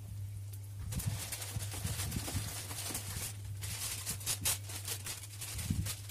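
Oil sizzling and crackling in a frying pan under an egg-and-vegetable patty and slices of bread, the crackle rising about a second in, over a steady low hum.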